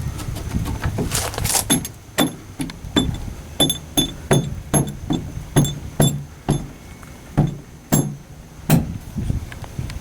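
Repeated sharp hammer strikes on metal, each with a short ring, coming about two a second with a few uneven gaps. A rougher patch of noise fills the first couple of seconds.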